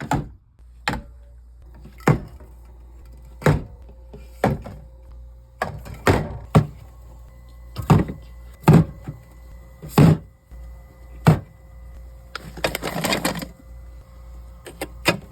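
Items being set into a mini fridge one after another: about a dozen knocks and clunks roughly a second apart, with a short rustling noise about two-thirds of the way through, over a low steady hum.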